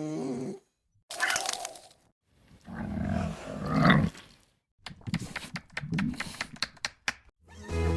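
An animal's rough, growling roar in a few separate bursts, followed by a rapid scatter of sharp clicks; music with a steady beat starts near the end.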